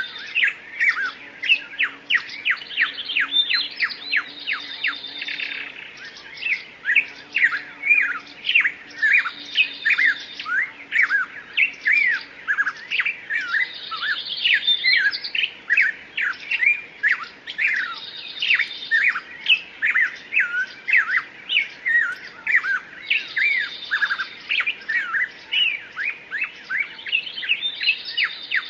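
Songbirds singing: a dense run of quick chirps and sweeping whistled notes, broken every four to five seconds by a short buzzy trill.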